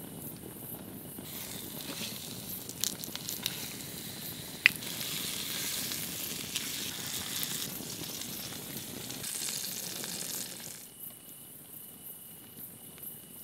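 Fish frying in a skillet over a wood fire: a steady sizzle that starts about a second in, with a few sharp clicks and one loud knock of pan or utensil near the start. The sizzle stops near the end, leaving insects chirping in a steady pulsing tone.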